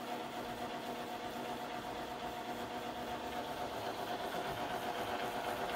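Epson SureColor F100 sublimation inkjet printer running with a steady, fairly faint mechanical hum.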